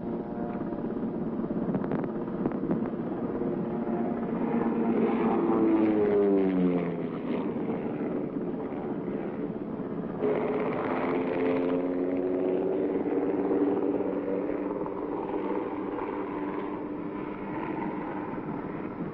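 Lockheed AH-56 Cheyenne compound helicopter, with a single General Electric T64 turboshaft, a four-blade rigid rotor and a tail-mounted pusher propeller, making a low-speed flypast. Its droning engine-and-rotor tones grow louder and drop in pitch as it passes, about six seconds in. Near ten seconds the sound jumps abruptly, then runs on steadily and fades a little as the aircraft flies away.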